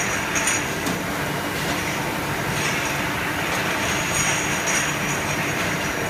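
Automatic glass bottle washing and drying machine running: a steady mechanical din of conveyor and drive, with a hiss over it and glass bottles moving along the line.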